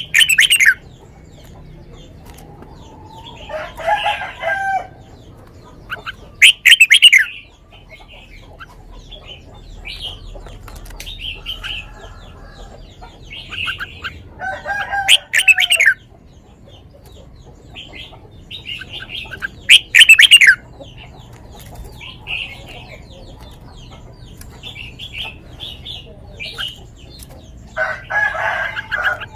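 Red-whiskered bulbul singing: short loud phrases every few seconds, with softer chirps in between.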